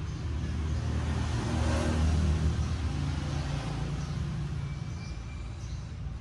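A motor vehicle's engine passing by, swelling to its loudest about two seconds in and then fading away.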